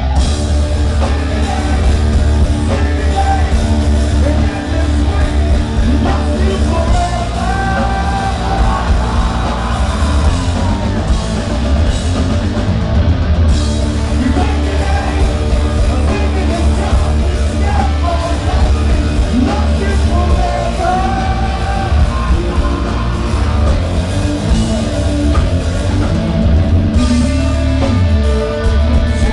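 Live rock band playing loud: electric guitar, drums and heavy bass under a sung lead vocal, recorded from the audience.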